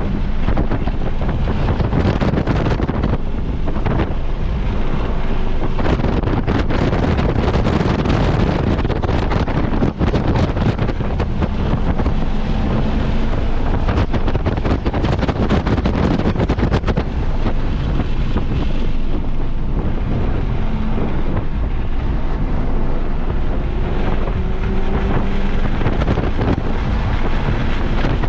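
Heavy wind buffeting on the microphone at track speed, with an Audi RS3's turbocharged five-cylinder engine faintly heard underneath, its pitch rising and falling as the car accelerates and slows.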